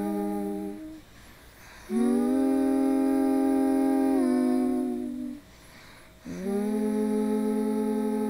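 Layered voices humming a slow, sustained harmony in long held chords. One chord fades out about a second in, then two phrases of roughly three seconds each scoop up into their chord and step down to lower notes near their end, with short gaps between.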